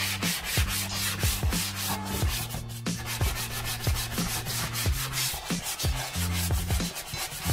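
Hand-sanding a drywall patch of dried joint compound: quick back-and-forth rubbing strokes, about three to four a second.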